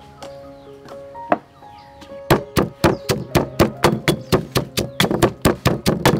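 Knife chopping on a cutting board in a steady run of about four strokes a second, starting about two seconds in, over background music.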